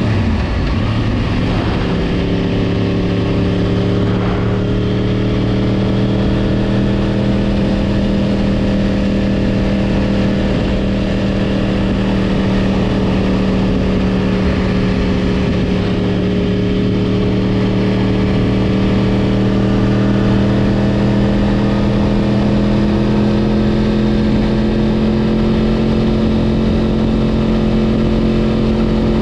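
Yamaha YZF-R1 inline-four engine running at a steady cruising speed, its pitch dipping briefly right at the start and then holding nearly constant.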